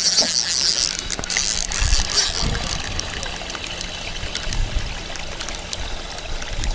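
Spinning reel on a picker rod being cranked, its gears giving a fast ticking whir.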